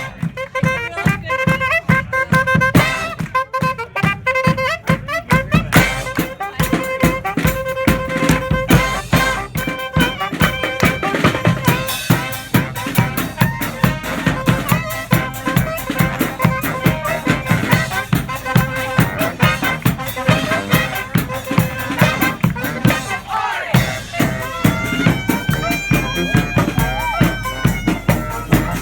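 Street marching band of horns, reeds and drums playing an instrumental passage over a steady drum beat. Near the end a wind line holds notes that bend up and down in pitch.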